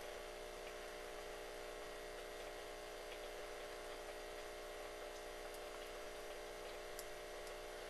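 Deer mouse gnawing on a small peeled oak stick: a few faint, scattered ticks over a steady hiss and electrical hum.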